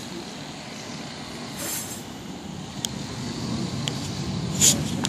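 Steady low rumble of vehicle traffic that swells in the second half, with a few short hisses and a couple of faint clicks.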